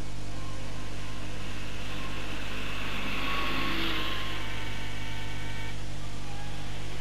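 Steady low hum under a constant hiss, swelling slightly about three to four seconds in.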